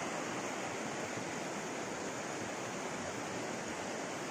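Steady rush of a river's flowing water.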